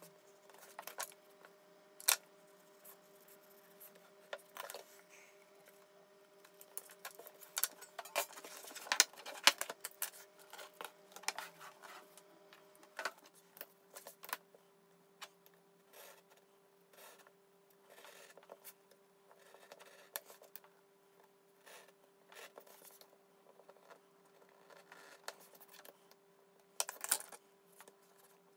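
Pencil scratching on cardboard and a plastic ruler being slid and set down on a cutting mat: scattered scrapes, taps and clicks, busiest a third of the way through, over a faint steady hum.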